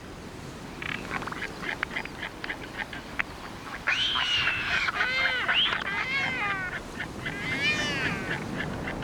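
Royal albatrosses calling: a run of sharp clacks, then loud calls from about four seconds in, each rising and falling in pitch, with another burst of calls near the end.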